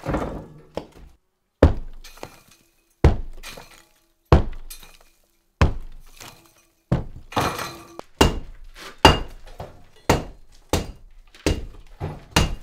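Sledgehammer blows against a brick wall, each strike followed by the clatter of breaking brick and falling rubble as the bricks are knocked out. About a dozen blows, roughly one every second and a half at first, coming faster in the second half.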